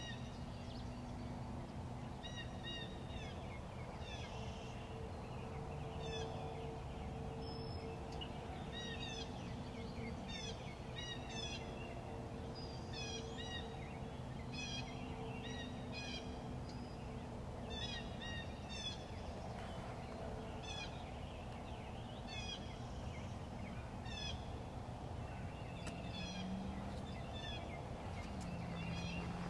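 Songbirds chirping with many short, quick notes throughout, over a steady low hum.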